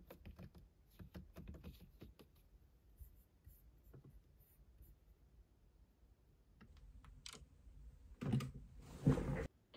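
Typing on a computer keyboard: a quick run of key clicks over the first few seconds, then sparser clicks. Two louder handling sounds come near the end.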